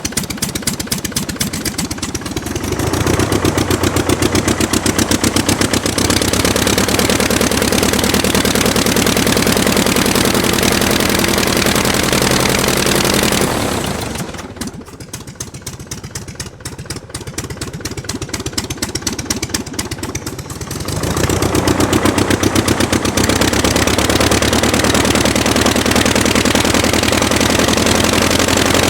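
Aircraft engine running with rapid firing pulses. It is opened up about three seconds in, throttled back to a lower, rougher run about halfway through, then opened up again a few seconds later.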